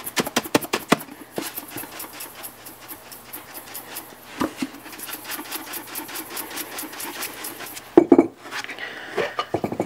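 Dry spice blend shaken inside a lidded stainless steel mixing bowl: a rapid, steady rattling swish of granules against metal and plastic. About eight seconds in, louder knocks as the bowl is set down on the wooden cutting board.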